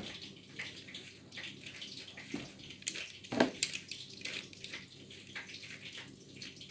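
Small flour-dusted fish being shaken in a metal mesh vegetable strainer to coat them: a repeated soft swishing and rustling, with a louder knock of the strainer a little over three seconds in.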